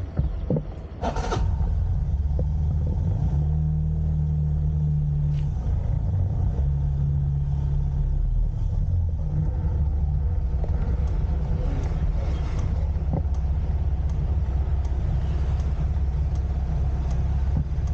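Motor scooter engine running as it rides slowly, a steady low hum, with wind rumble on the microphone.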